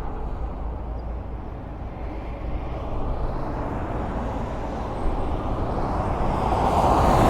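Highway traffic: a steady rumble of cars going by, with one vehicle coming closer and growing louder near the end.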